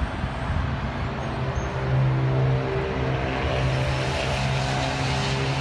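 Peterbilt 320 garbage truck's engine running steadily as the truck drives away, a continuous engine hum that is loudest about two seconds in.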